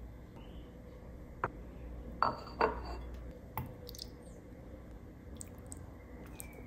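Kitchenware being handled: a few light knocks, then two louder glassy clinks about two seconds in, over a low steady hum.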